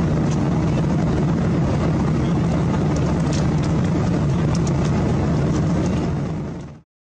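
Steady roar of an airliner's passenger cabin in flight: engine and airflow noise, with a few faint clicks. It fades out and cuts off near the end.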